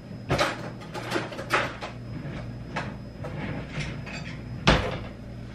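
Handling and rummaging noises: a string of knocks, clicks and rustles as things are picked up and moved about, with the sharpest knock about three-quarters of the way through.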